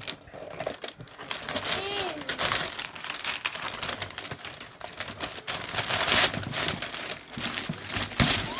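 Tissue paper and a glossy gift bag crinkling and rustling as the paper is pulled out and a hand rummages inside. It comes as a run of quick, irregular crackles, louder around six and eight seconds in.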